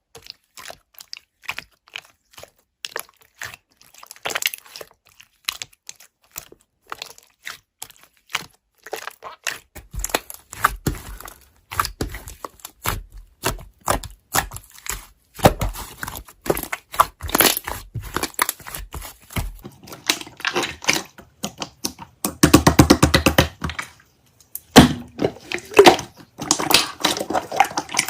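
Slime being pressed, poked and stretched by hand, giving a run of small sticky clicks and crackling pops. The pops grow denser and louder after the first few seconds, with two close bursts of crackling in the last six seconds.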